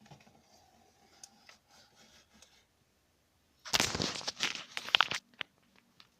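Handling noise: faint light clicks, then a burst of rough rustling and crunching about a second and a half long, starting a little past halfway.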